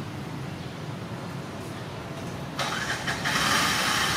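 A motor vehicle's engine with a steady low rumble, then a sudden louder rush of noise about two and a half seconds in that builds toward the end.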